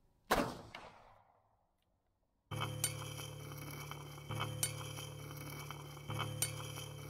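A single sharp bang that rings away over about a second, then, after a short silence, a steady low drone with light metallic clinks about every two seconds, the sound bed of the closing logo card.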